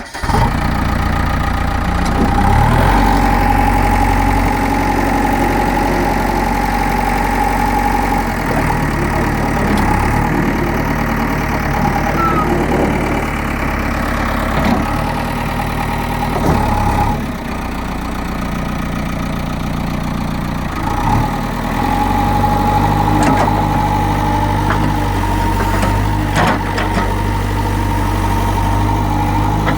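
JCB 3DX backhoe loader's diesel engine running steadily while the machine is operated, with a steady high whine over the engine note that drops out for a few seconds past the middle and then comes back.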